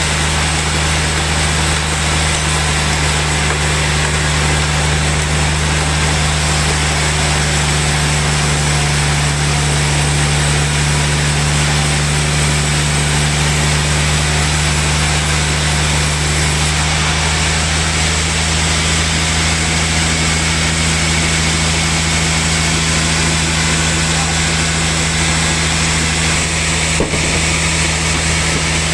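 Sawmill machinery running steadily: a continuous machine hum with a strong, even low drone and a hiss over it, and a single brief click near the end.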